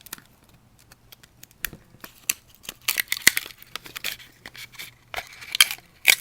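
Cured carbon fiber and epoxy layup crackling and popping as a box cutter blade lifts it off its plug, the part releasing from the mold. A run of sharp, irregular clicks and snaps, sparse at first and thicker and louder from about two seconds in.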